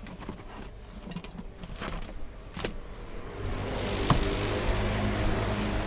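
A few sharp clicks of parts being handled in a car's engine bay, then a steady vehicle engine drone comes in about three and a half seconds in and keeps running.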